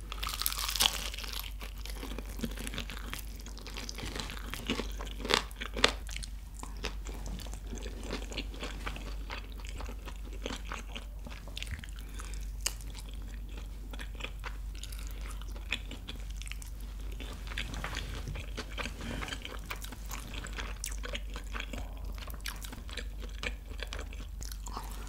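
Close-miked crunching and chewing of crispy fried chicken: bites through the crackly coating and gnawing meat off a drumstick bone, a steady run of crackles with the sharpest crunches about a second in and again around five to six seconds in.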